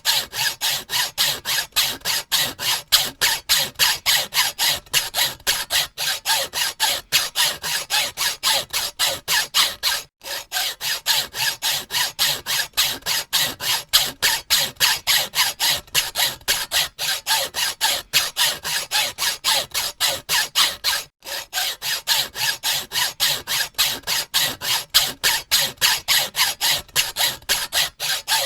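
Hacksaw sawing with quick, regular back-and-forth strokes, about three to four a second, with a rasping sound. It stops briefly twice.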